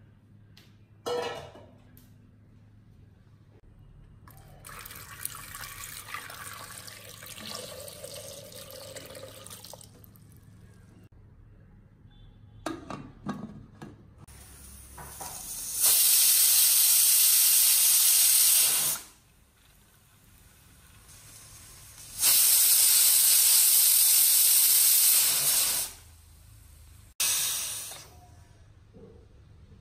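Aluminium pressure cooker on a gas flame venting steam through its weight valve: two long, loud hisses of about three seconds each, then a short third one. The cooker has come up to pressure with the potatoes boiling inside. Earlier, a few knocks as the metal lid is handled.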